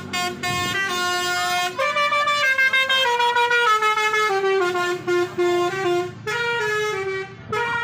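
Basuri 'telolet' musical horn sounding a tune: several horn tones together, stepping from note to note every fraction of a second with short breaks, the melody falling in pitch through the middle and rising again near the end.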